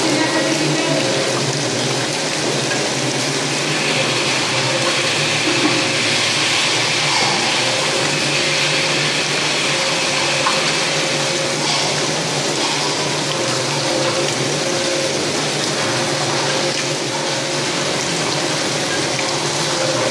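Pisces trout filleting machine running steadily, its water sprays hissing over a constant mechanical hum.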